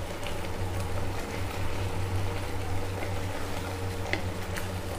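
Thick tomato chutney bubbling in ghee in a kadhai as it simmers down to thicken, stirred with a wooden spatula that gives a few light clicks against the pan. A steady low hum runs underneath.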